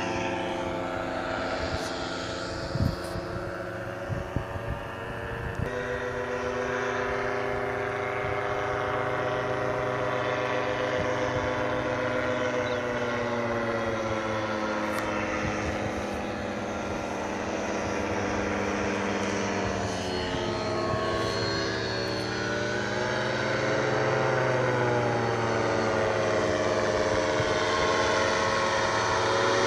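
Paramotor engine and propeller of a powered paraglider droning overhead, its pitch sliding slowly up and down as the craft passes. A few brief knocks sound about three to five seconds in, and the engine note jumps abruptly just before six seconds.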